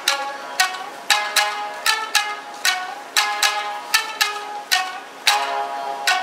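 Tsugaru shamisen ensemble playing together, the plectrums striking the strings in sharp, ringing plucked notes about two a second.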